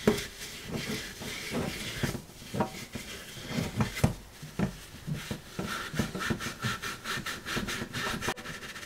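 Steel wool pad scrubbing the combustion chamber of an engine cylinder head, in short, irregular rasping strokes that get quicker in the second half.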